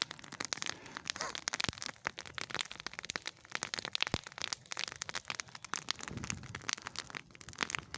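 Small campfire of thin spruce saplings crackling, with many quick, irregular snaps and pops.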